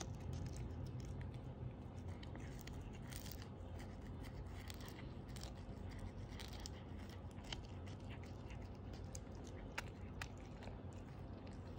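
Siamese cat biting and chewing a capelin: irregular small crunching clicks over a faint low hum.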